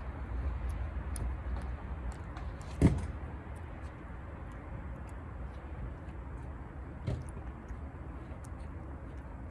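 A tuxedo cat with stomatitis licking and chewing canned tuna from a plastic dish, making faint, quick wet clicks over a steady low rumble. A sharp thump comes about three seconds in, and a smaller knock about seven seconds in.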